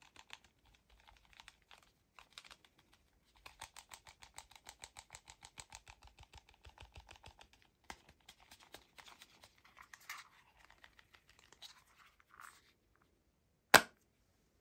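Hands handling an iPhone 13 Pro in a clear plastic Ghostek case with a card-wallet sleeve and round grip. A rapid, even run of light clicks, about six a second, goes on for some four seconds, then come scattered scrapes and clicks, and one sharp, much louder click near the end.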